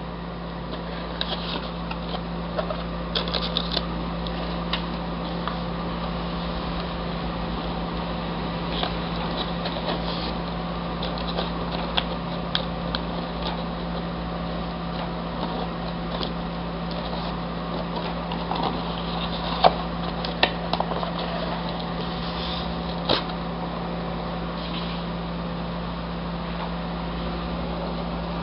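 Steady low mechanical hum, with scattered small clicks and taps, a few sharper ones about two-thirds of the way in.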